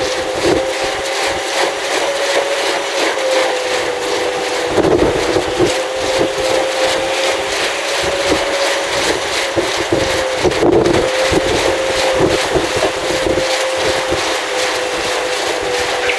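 Vestas V126 wind turbine running in a gale: a steady whine that wavers slightly in pitch over the rush of strong wind, with gusts buffeting the microphone every few seconds.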